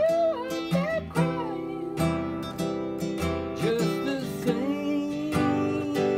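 Classical-style acoustic guitar being strummed in a steady rhythm of chords. A man sings along briefly at the start and again around the middle.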